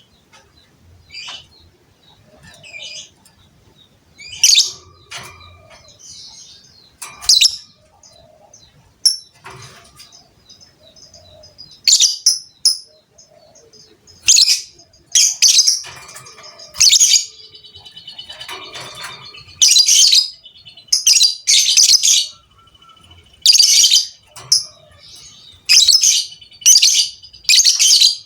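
Lovebird giving short, loud, shrill chirping bursts, a few at first and then about one a second in the second half.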